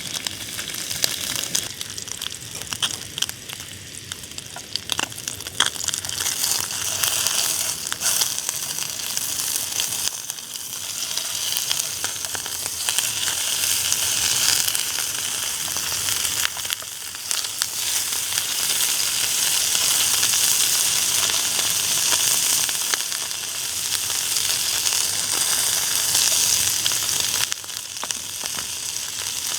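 Slices of pork sizzling as they cook, a steady hiss peppered with small pops and crackles of fat, swelling and easing in loudness.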